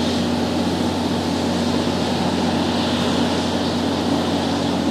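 Steady rushing of floodwater across a submerged road, with a steady low hum underneath.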